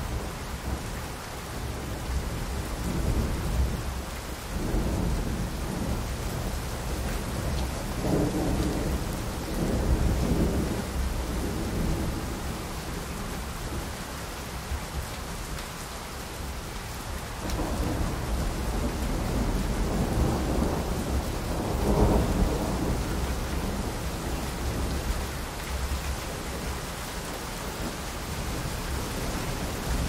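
Steady rain falling through a thunderstorm, with rolling thunder rumbling in several long swells. The loudest peal comes about two-thirds of the way through.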